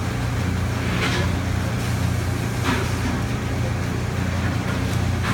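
A steady low mechanical hum, with two brief soft noises about one second and near three seconds in.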